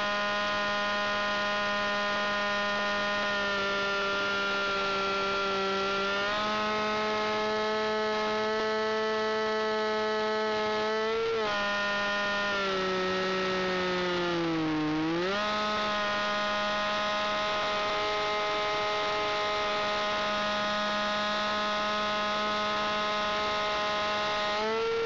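Small engine of a Basic 2000 radio-controlled aerobatic model aeroplane running in flight, heard close from a camera in its cockpit: a steady buzzing note. The pitch steps up about six seconds in, dips briefly around eleven seconds, slides down and comes back around fourteen to fifteen seconds, and steps up again near the end.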